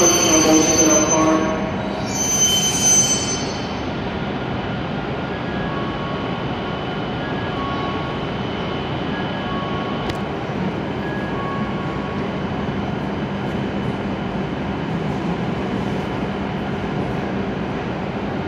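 Steady hum of W7-series Shinkansen trains standing at the platform, with a short hiss about two seconds in.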